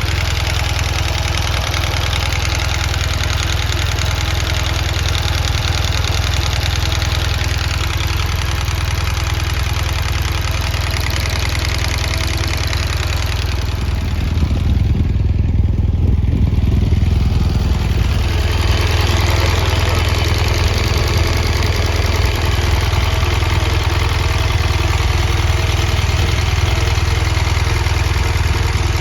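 BMW R1200GS Rallye's boxer twin engine idling, with the ticking from both cylinders that the owner cannot place and wonders may be a rocker arm problem. Around the middle the sound turns briefly duller and a little louder.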